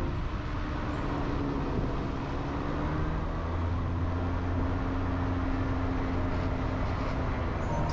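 A ferry boat's engine running with a steady low hum that grows deeper and stronger about three seconds in.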